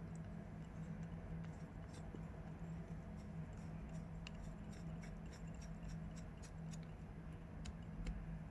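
Faint small clicks and ticks from hand work on laptop parts, scattered and thickest in the second half, over a steady low hum.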